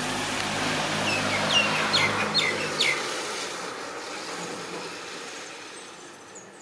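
Common mynas calling: a quick run of short, downward-sweeping chirps in the first three seconds. Under them is a low hum that fades out about three seconds in.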